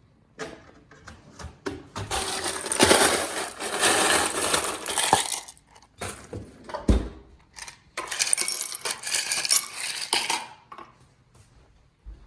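Coconut water poured from a cracked coconut into a glass, in two pours of about three seconds each, with clinks and a knock of glass and shell between them.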